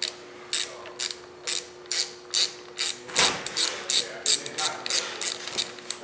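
Hand ratchet clicking as it tightens the bolts of a motorcycle handlebar switch housing: short sharp clicks about two a second, coming faster, about four a second, from about three seconds in.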